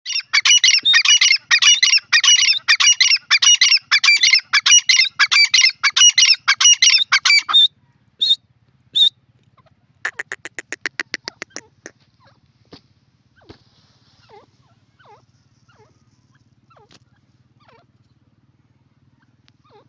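Grey francolin calling. A loud, rapid run of repeated shrill notes lasts about seven and a half seconds. It is followed by two single notes, a quick rattling series of notes around ten seconds in, and then soft, scattered short calls.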